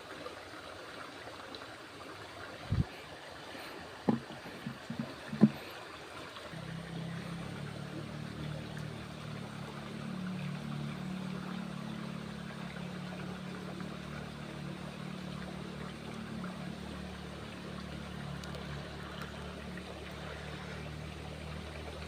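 Flowing water runs steadily while a few sharp knocks sound in the first few seconds. From about six seconds in, a steady low engine hum joins and runs on unchanged.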